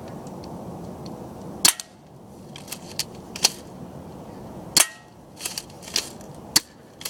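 Crosman Stinger S32P spring airsoft shotgun firing four sharp snaps, roughly one every one and a half to two seconds, with lighter clicks and ticks between the shots.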